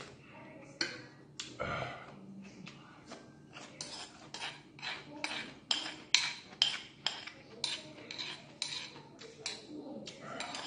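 Metal spoon scraping and clinking against a bowl as broth and rice are scooped up. The clinks are sparse at first, then come at about three a second from about four seconds in.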